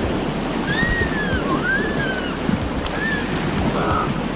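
Whitewater river rapids rushing steadily around an inflatable kayak as it is paddled through them. A few faint, high, arching whistle-like glides sound over the water about a second in, again about two seconds in, and briefly near three seconds.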